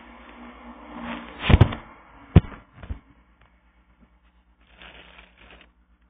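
Handling noise from a phone being moved and set down: rustling that builds up, then a heavy knock and a sharp click as it lands on the table, followed by a few faint rustles.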